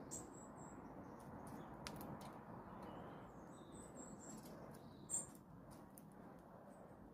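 Starlings giving short, high squeaky calls, scattered and brief, the loudest about five seconds in, with faint ticks between them over a low steady background.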